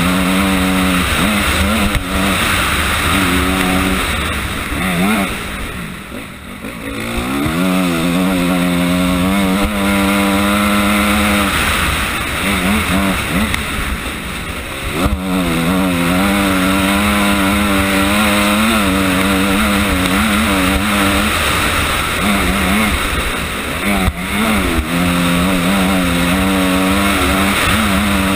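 Honda CRF250R's single-cylinder four-stroke engine running hard under load, its revs rising and falling as the throttle and gears change. About five seconds in the throttle is shut and the engine note drops, then it revs back up about seven seconds in.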